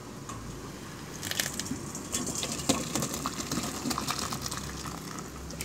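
Cooked sponge gourd soup being poured from a metal pot into a bowl: liquid splashing with vegetable pieces plopping in and small knocks of the pot, starting about a second in and loudest near the middle.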